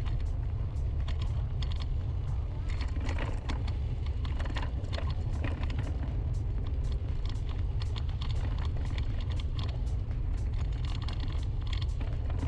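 Hover-1 Dynamo electric scooter riding over a dirt road: a steady low rumble with a constant run of sharp clicks and rattles as the tyres and frame jolt over the rough surface, the rear fender vibrating badly.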